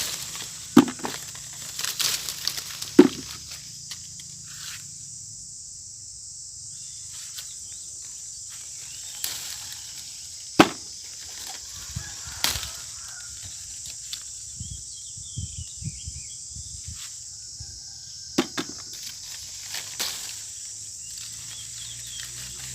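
Steady high-pitched insect chorus, with scattered short knocks and rustles, the sharpest about three seconds in and again near eleven seconds.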